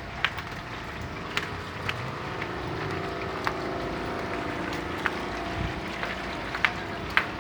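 A vehicle engine idling in stopped traffic, a steady hum with scattered sharp clicks and taps over it.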